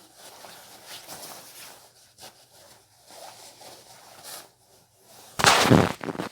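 Clothing and gloves rustling and rubbing against the microphone in uneven scuffs, with one much louder rustling knock against it near the end.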